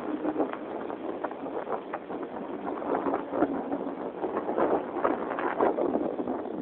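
A sailing boat's inboard engine racing hard while the hull stays stuck aground on a sandbank, under a dense, irregular choppy noise.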